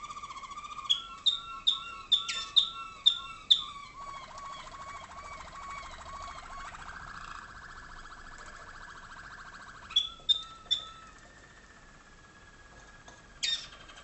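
Waterslager (Malinois) song canaries singing a continuous warbling, rolling song. A run of about seven sharp, loud notes comes between one and three and a half seconds in, and three more about ten seconds in.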